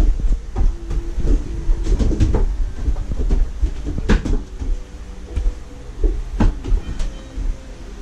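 Black plastic laundry basket being handled and lifted overhead, giving a steady low rumble of movement with several sharp knocks and clatters.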